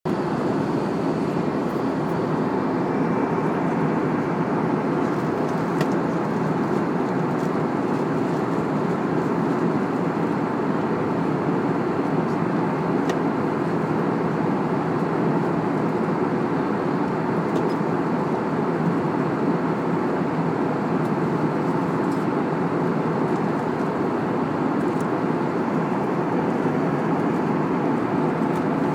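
Airbus A320 cabin noise in cruise: the jet engines and the airflow over the fuselage make a steady, even rushing drone that holds the same level throughout, with a few faint ticks.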